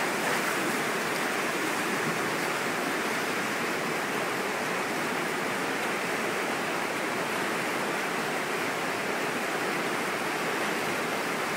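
Whitewater rapids rushing steadily over rocks.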